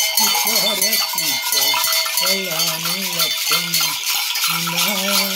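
Gourd maracas and bunches of metal bells shaken steadily together in a continuous jangling rattle. Under them a man's low voice chants, holding long steady notes.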